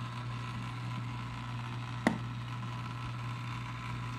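Steady low hum of the aquarium's running pump equipment under a faint hiss, with one sharp plastic click about two seconds in as the tank's hood parts are handled.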